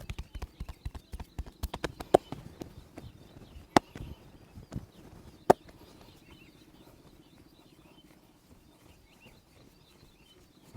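Percussive massage strokes: hands tapping and slapping on the body several times a second, then thinning to a few sharp single slaps before dying away to faint sounds.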